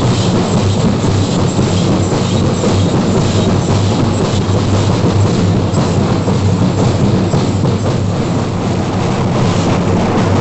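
Singarimelam troupe of chenda drums beating a loud, fast, unbroken rhythm.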